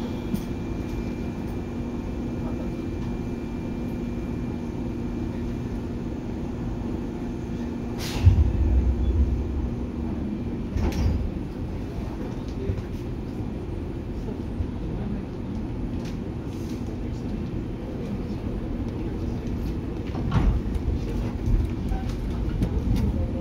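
Inside a JR 103-series electric train: a steady hum and rumble, with two heavy thumps about eight and eleven seconds in. At the very end the MT55A traction motors begin a rising whine.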